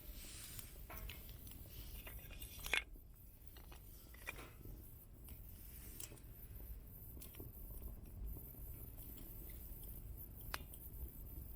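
Small wood fire crackling, with sparse sharp pops and one louder snap a little under three seconds in.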